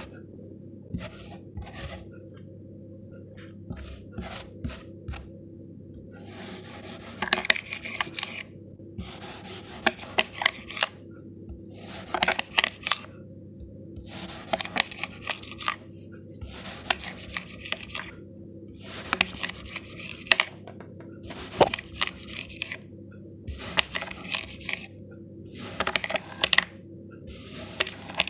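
Kinetic sand being sliced with a knife, one cut after another about every two to three seconds. Each cut is a short, gritty, crunchy scrape with sharp clicks in it. The first few seconds hold only scattered light clicks.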